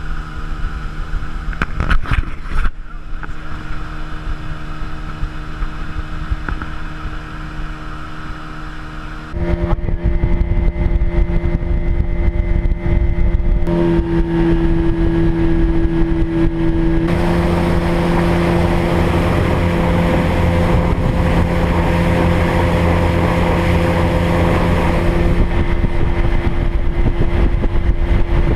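Motorboat engine running steadily, then throttled up and louder about nine seconds in, with a rush of water and wind under it.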